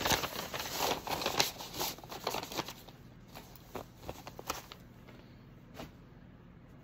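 Rustling and light clicks of cross-stitch projects and fabric being handled and swapped. The sounds are busy for the first few seconds, then thin out to a few soft touches over faint room tone.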